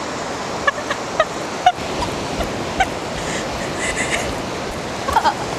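Surf washing onto a sandy beach, a steady rush, with a few short chirp-like sounds over it. A wavering voice starts near the end.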